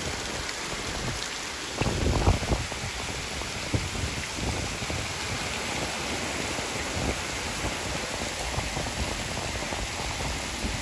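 Heavy rain falling steadily on ground and grass, a continuous hiss, with a brief low rumble about two seconds in.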